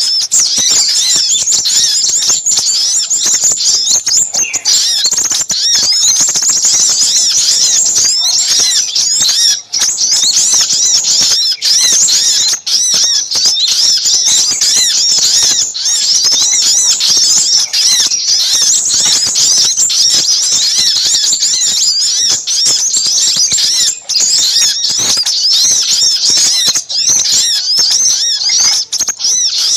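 Dense, unbroken chorus of many small birds chirping and trilling at high pitch: a bird-lure recording of sogok ontong (spiderhunters) calling noisily, mixed with sepah raja (minivets).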